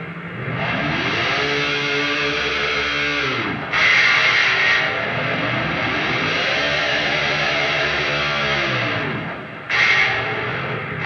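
Ibanez PIA electric guitar through high-gain distortion, playing two long sustained notes whose pitch glides up, holds and slides back down, each followed by a louder, brighter struck note.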